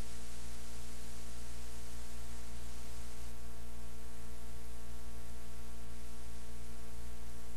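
Steady electrical hum with hiss: mains hum and background noise in the recording, holding level throughout with no other event.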